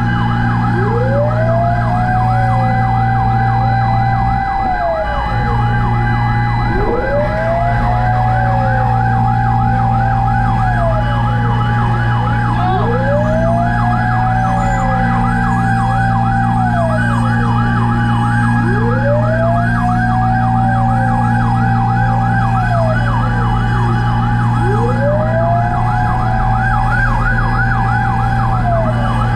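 Fire truck sirens sounding together: one on a rapid yelp, another on a slow wail that rises, holds and falls about every six seconds, over a steady diesel engine drone.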